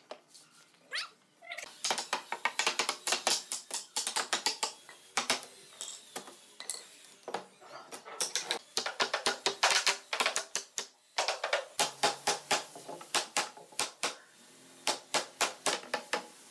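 Hammer tapping rapidly on a wooden wardrobe frame, several sharp knocks a second in runs with brief pauses, knocking the frame joints and panels home.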